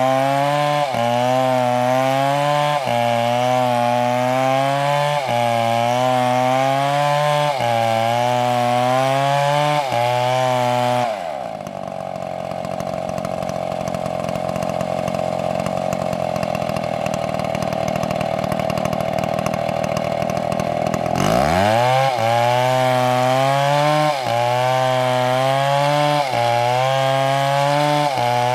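Large chainsaw cutting wood at full throttle, its engine note rising and falling about every second and a half as the bar bites. About 11 seconds in the throttle is released and the saw drops to a steady idle. Around 21 seconds it revs back up and cuts again.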